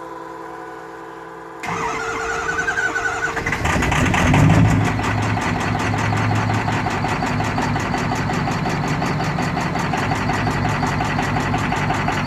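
2003 Ford F-250's 6.0 Power Stroke V8 diesel cranked over by the starter for about two seconds, catching with a brief surge, then settling into a steady idle with an even, rhythmic clatter. The rough running is put down to bad injectors.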